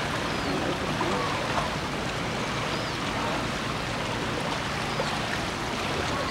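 Steady rush of moving water in a shallow sea turtle pool, an even, unbroken wash of sound.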